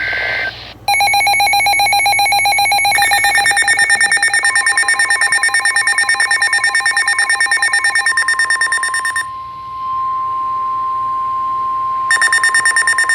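The end of a NOAA Weather Radio SAME data burst, followed by a weather radio receiver's fast-pulsing electronic alert alarm, about eight beeps a second. The steady 1050 Hz NWR warning tone joins about four seconds in and continues alone after the pulsing stops, and the pulsing alarm returns briefly near the end. Together these signal that a warning is being broadcast.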